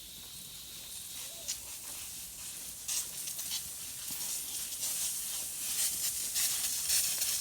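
Irrigation sprinklers spraying water: a steady hiss that grows louder, with irregular ticks and spatters from about three seconds in.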